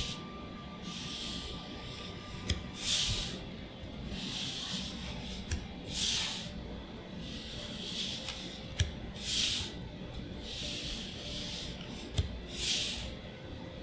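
Trading cards being slid one at a time off a stack of cards, each giving a short papery swish about every second and a half, with a sharp tap every few seconds as cards are set down.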